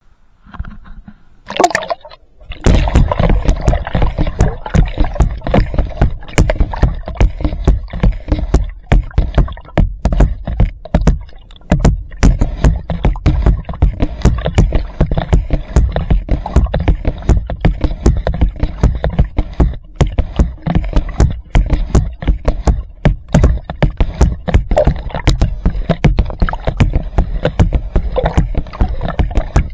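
Water splashing and sloshing right against the microphone, with a heavy low rumble and many irregular sharp knocks. It starts about two and a half seconds in after a brief quiet lead-in.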